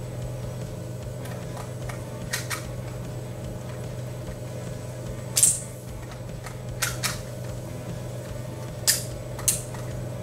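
Sharp clicks of shells being loaded one by one into the cylinder of a Colt Single Action Army replica gel blaster, about eight in all, the loudest about five and a half seconds in. A steady low hum runs underneath.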